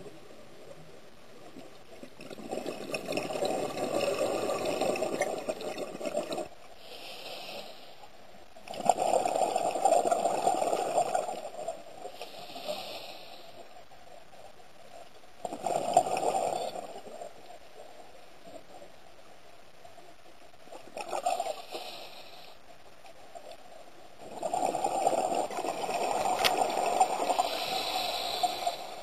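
Scuba diver breathing through a regulator underwater: bubbling bursts of exhaled air every five to six seconds, some lasting three to four seconds, with a fainter hiss in the gaps between them.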